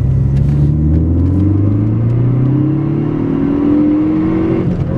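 A Ford Focus ST's turbocharged four-cylinder engine, heard from inside the cabin, accelerating hard: the engine note climbs steadily through one gear. Near the end the pitch drops suddenly as the driver shifts up, and it carries on at the lower pitch.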